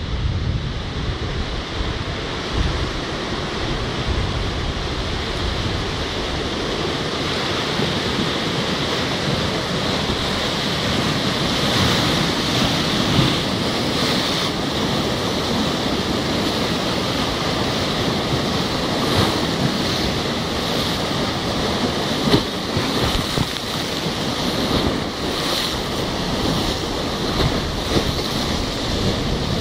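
Rough sea surging and breaking against a seawall and rocks: a continuous rush of churning water. Wind buffets the microphone with a low rumble, and there are a few louder gusts or splashes.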